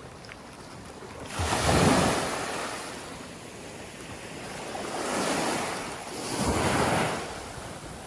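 Small sea waves breaking and washing up on a sandy, rocky shore. The surf swells three times, about a second and a half in, again around five seconds, and near the end, and the first swell is the loudest.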